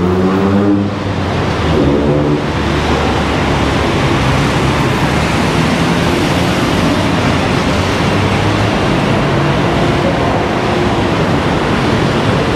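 Steady loud rush of city road traffic mixed with wind on the microphone, with a pitched engine hum that slides about in the first couple of seconds.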